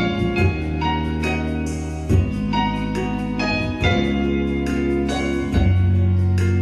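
Instrumental music: held keyboard or organ-like chords over a strong sustained bass, the chord changing every second or two.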